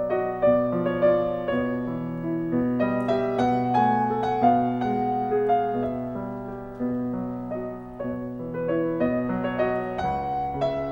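Piano music: a slow run of held notes and chords.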